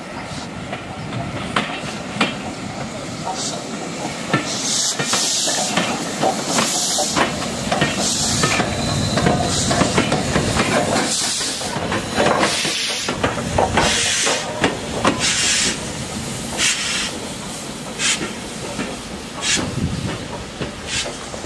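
LMS Royal Scot class 4-6-0 steam locomotive 46115 Scots Guardsman moving slowly, its steam beats hissing at uneven intervals of about one to two seconds over the rumble of wheels on rail, with scattered sharp clicks.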